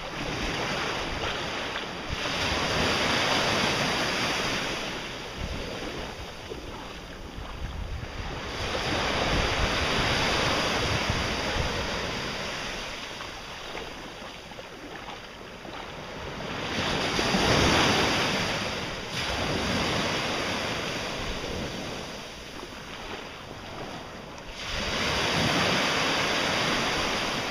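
Small surf breaking and washing in the shallows, swelling and fading with each wave every few seconds, the biggest swell about two-thirds of the way through. Wind buffets the microphone underneath.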